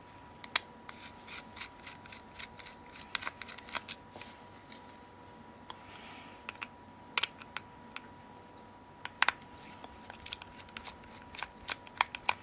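Small irregular metal clicks and scrapes of a T5 Torx screwdriver seating in and turning out the tiny screws of a Nokia X7's frame, with a few sharper clicks.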